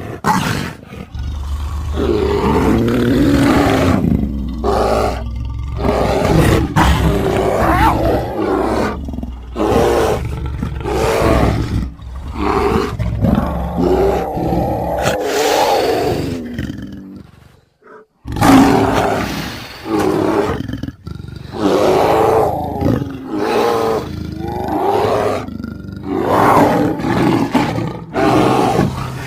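Creature roars and snarls made from lion, tiger, leopard, bear and cougar recordings, coming one after another. There is a short silence a little past the middle.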